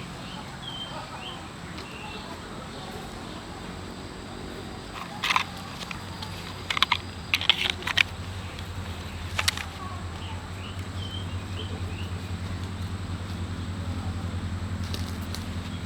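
Small birds chirping in the background, with a cluster of sharp knocks or clicks in the middle and a low steady hum setting in partway through.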